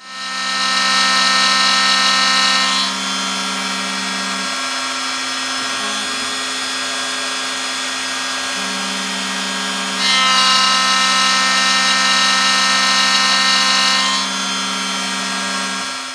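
Shapeoko 3 CNC router with its spindle at 16,000 rpm and an end mill cutting aluminum, a loud high whine over a steady hum. The cutting noise is louder for the first three seconds and again from about ten to fourteen seconds, easing in between.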